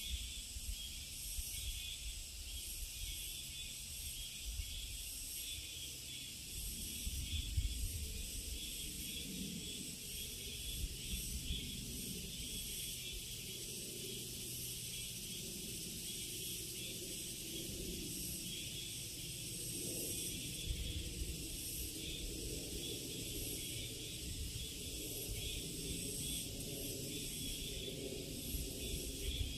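Steady high-pitched insect chorus in a summer forest, an unbroken shrill hiss that never pauses. A low rumble underneath swells about seven seconds in.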